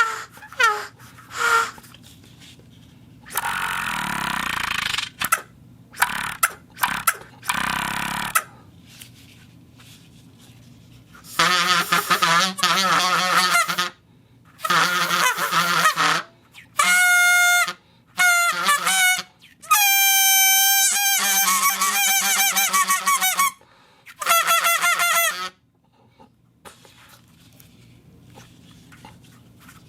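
Foley creature voice effect: a few short falling cries, then breathy hissing bursts, then a run of longer, wavering, honk-like pitched calls with quiet gaps between them.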